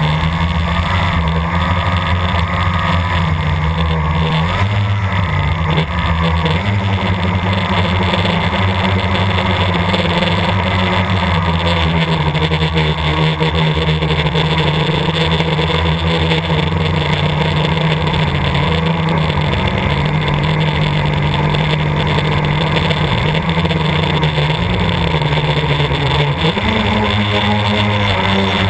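Blade 350 QX quadcopter's four electric motors and propellers, heard from its onboard camera: a loud, steady buzzing whose pitch shifts up and down with throttle changes, around five seconds in and again near the end.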